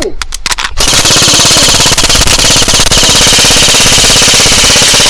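Airsoft gun firing on full auto, a fast unbroken stream of shots starting about a second in after a few single clicks: a magazine being shot empty.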